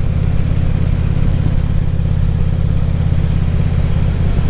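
2014 Harley-Davidson Ultra Classic Limited's V-twin engine running at a steady cruise, with the road and wind noise of riding.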